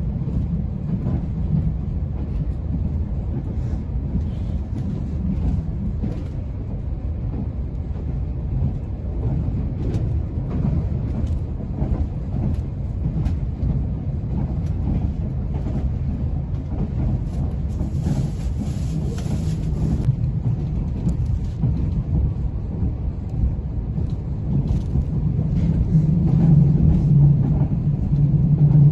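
Moving train's steady running rumble heard from inside the carriage, growing louder near the end.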